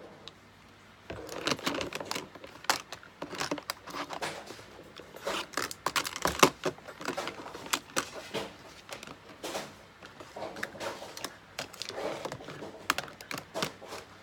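Plastic eyeshadow palettes and makeup compacts clicking and clattering as they are handled and set into a plastic storage box, an irregular run of small knocks.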